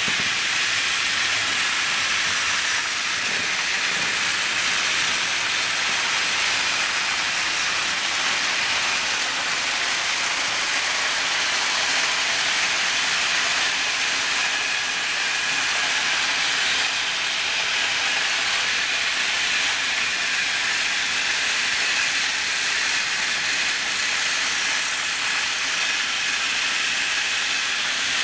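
Several battery-powered toy trains running at once on plastic track, their small motors and gearboxes giving a steady high-pitched whirring hiss with the rattle of wheels and wagons on the track.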